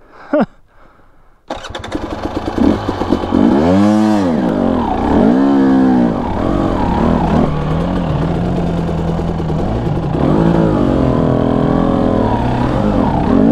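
Husqvarna TE250i two-stroke fuel-injected (TPI) dirt bike engine starting abruptly about a second and a half in, revved up and down twice, then running steadily at low revs. It is being restarted after flaming out at low speed on a climb, which the rider puts down to the ECU remap.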